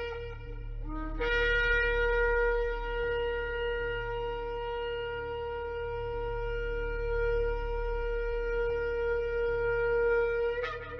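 Shofar (ram's horn) sounding one long held blast of about nine seconds, beginning with a short scoop up in pitch and ending with a brief upward flick; the tail of a previous blast stops right at the start.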